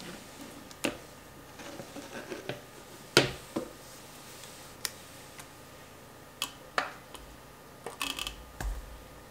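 Scattered light clicks and taps from a small plastic USB laser projector and its cable being handled on a countertop. The loudest comes about three seconds in, and a quick cluster follows near the end.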